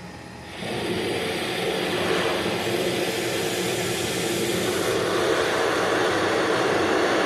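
CNC lathe machining on a roughing pass: a steady cutting and machine noise that comes in sharply under a second in and holds.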